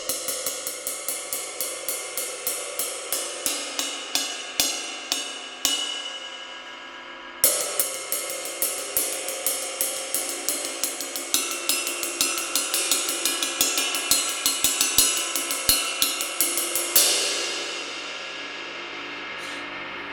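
Saluda 24-inch Decadence ride cymbal, repaired by cutting out a crack around its bell, played with a stick in a steady ride pattern of about three strokes a second with a few harder accents. It is left to ring out briefly partway through, struck hard again, and near the end takes a last hard hit and fades away.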